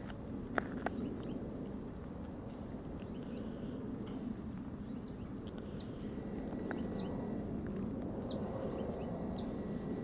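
A small songbird chirping: short, high, falling notes, roughly one a second, starting a couple of seconds in, over a steady low outdoor rumble. Two sharp clicks come just after the start.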